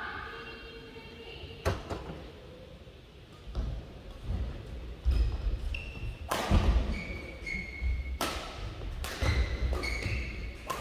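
Badminton rally: racket strings striking the shuttlecock every one to two seconds, with players' feet thudding and shoes squeaking on the court mat in between.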